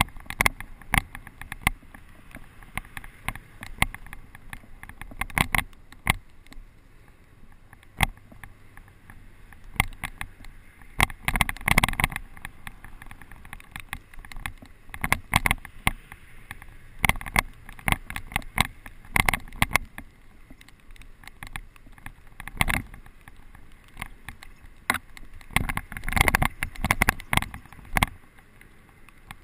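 Mountain bike rattling over a bumpy, leaf-covered dirt trail: irregular sharp knocks and clatter over steady tyre and rolling noise. There are louder bursts of rattling about 12 seconds in and again near the end.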